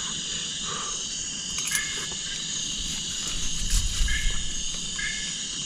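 Steady chorus of insects in the forest, a continuous high shrill that does not let up.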